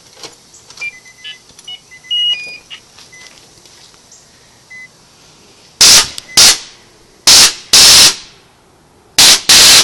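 Nitrous oxide purge solenoid venting gas in six short, loud blasts, starting about six seconds in, with the last two close together near the end. The purge is fired to bleed off nitrous and stop a small leak in the newly installed system.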